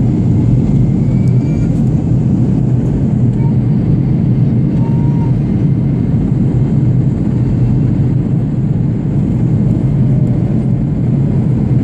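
Aeroplane in flight through clouds: a steady, loud, low rumble of engines and airflow as heard inside the cabin.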